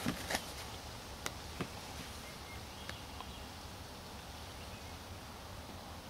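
Paper catalog pages being handled and turned: a few short crisp clicks and rustles in the first two seconds, then only a low steady background hum.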